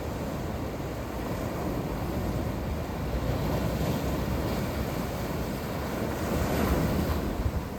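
Sea waves washing in and breaking, a continuous surging rush that swells louder near the end as a wave comes in, with wind buffeting the microphone.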